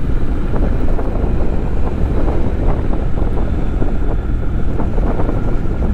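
Steady wind rush over the microphone of a Honda NC750X motorcycle on the move, with the bike's parallel-twin engine running under it.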